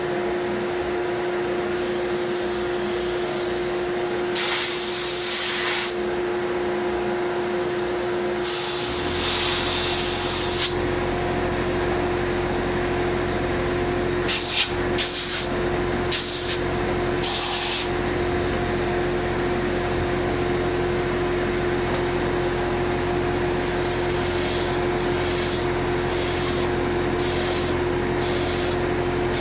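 Electric power sander running with a steady hum, as a wooden box is pressed against the sandpaper in hissing strokes: a few longer passes, then quicker strokes about two a second near the end. A deeper rumble joins the hum about nine seconds in.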